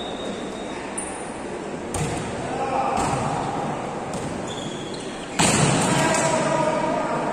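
Volleyball rally: sharp hits on the ball about once a second, four times, then a sudden burst of shouting and cheering from players and spectators about five seconds in.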